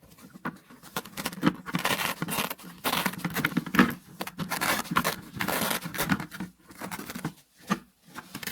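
Fabric cover of an anti-snoring pillow rustling and scraping as it is handled and detached, in irregular bursts.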